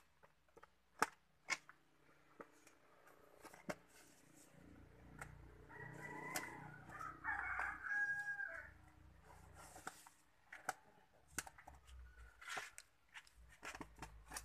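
A knife scraping and slitting packing tape on a plywood crate, heard as scattered short sharp clicks and scratches. Midway through, a rooster crows once, the loudest sound.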